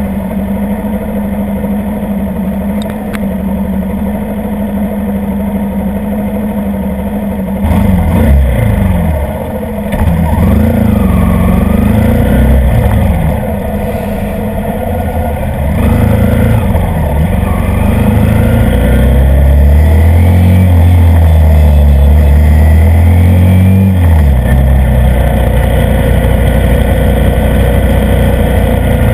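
Kawasaki D-Tracker supermoto's single-cylinder four-stroke engine, heard close up from a camera mounted on the bike. It runs steadily at first, then from about eight seconds in it revs up and drops back again and again as the bike pulls away and shifts, holding a higher, louder note for several seconds before easing off near 24 seconds.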